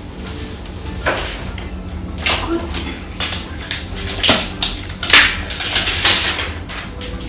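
Hard objects being handled and knocked together: a string of irregular clinks and knocks, with a longer rustling clatter about five to six seconds in.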